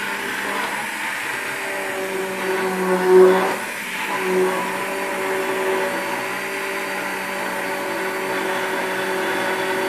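Hand-held immersion blender running in a stainless steel pot, mixing roux into hot milk for a white sauce. A steady motor hum, briefly louder about three seconds in and dipping just before four seconds.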